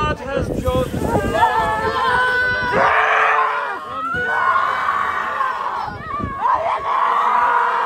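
Mourners wailing loudly in grief, with several voices at first, then three long drawn-out cries.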